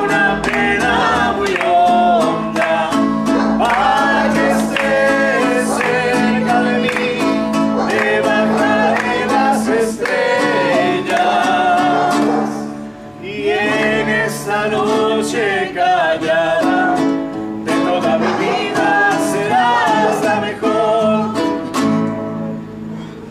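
Several voices singing together to acoustic guitar strumming, with a brief break about thirteen seconds in, fading away near the end.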